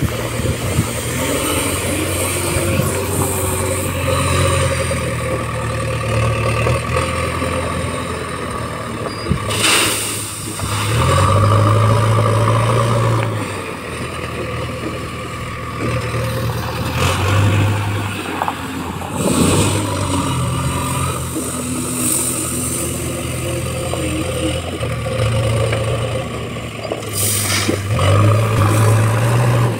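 JCB backhoe loader's diesel engine running and revving up in several long swells as it works the loader bucket, with short bursts of crushed stone pouring into the tractor trolley.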